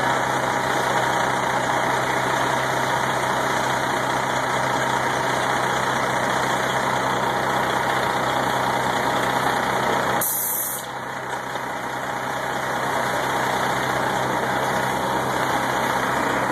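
Fire engine's diesel engine running steadily at the scene, a constant low hum under heavy mechanical noise. A brief hiss cuts in about ten seconds in.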